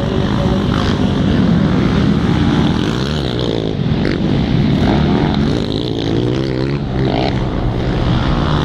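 Several racing quad (ATV) engines revving, their pitches overlapping and rising and falling as they accelerate and ease off.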